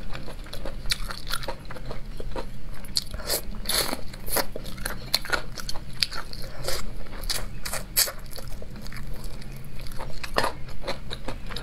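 A person chewing braised chicken feet: a string of crisp, irregular crunches as the teeth break through the feet.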